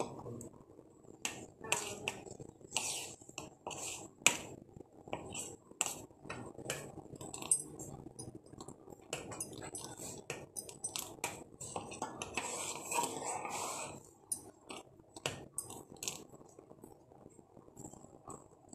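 Metal ladle and spoon clinking and scraping against a metal cooking pot as milk tea is stirred, scooped up and poured back, in irregular sharp clinks.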